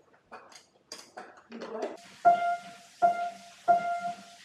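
A single high key on a Kawai upright piano struck three times, roughly every 0.7 seconds, each note ringing and fading, after a couple of seconds of soft knocks and rustles.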